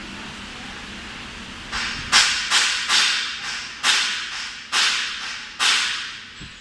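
Pneumatic air on a silicone-rim glass lid moulding machine: after a steady low machine noise, about seven sharp hisses of compressed air from about two seconds in, each starting suddenly and dying away quickly.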